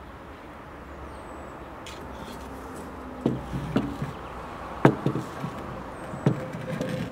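A plate being set down and shifted on a trailer's wooden floor: a run of five or six sharp knocks and clatters, the loudest about five seconds in, over a steady low hum of distant traffic.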